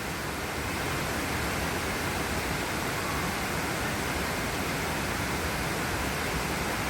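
Steady rushing noise of a nearby waterfall, an even hiss with no breaks.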